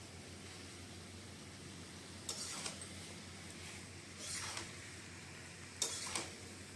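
Quiet room tone with a faint steady hum, broken by three short, soft rustling noises about two, four and a half, and six seconds in.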